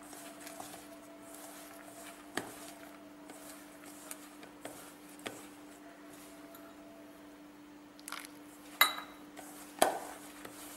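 Hand mixing rice-flour dough in a stainless steel bowl, with a few clinks against the steel and two sharper knocks on the bowl near the end, over a steady low hum.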